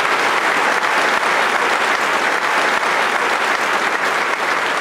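Large audience applauding, a dense steady clapping that eases slightly near the end.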